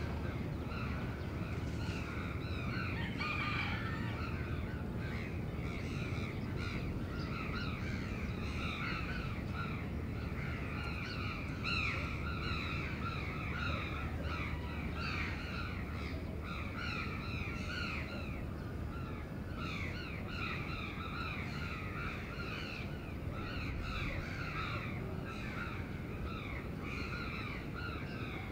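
Many crows cawing over and over, their harsh calls overlapping, above a steady low rumble of the city.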